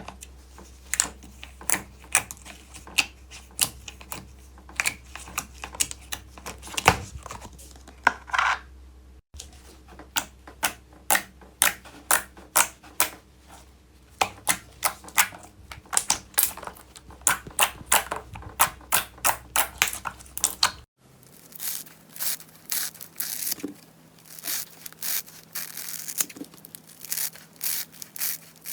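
Slime being squeezed and poked by hand, making rapid runs of crackling clicks and pops. Two hard cuts, about a third and two-thirds of the way through, split it into three clips.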